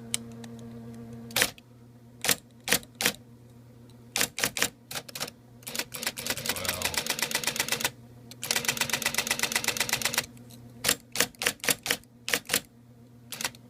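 IBM Correcting Selectric III electric typewriter in use: its motor hums, then come separate sharp key strikes. Twice it runs for about two seconds in a rapid, machine-paced string of repeated strokes, then single strikes resume.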